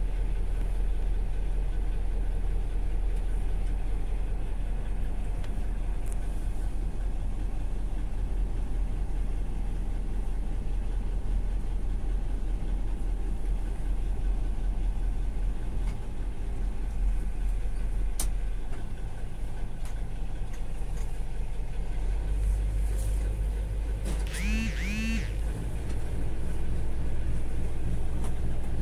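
Engine of the Strizh-7 passenger motor boat running steadily, a low drone heard from inside its cabin, growing a little louder near the end. A short double squeal sounds shortly before the end.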